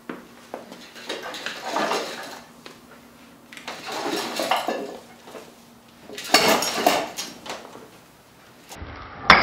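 Rope hauled through a pulley block in three pulls, lifting a chain-hung stack of iron weight plates that clink against each other and the chain with each pull. Near the end there is a single sharp, loud clank.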